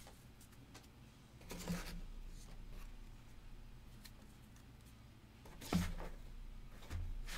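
Trading cards and packs being handled on a tabletop: two short rustling scrapes, each with a soft low thud, about a second and a half in and again near six seconds, then a lighter knock near the end.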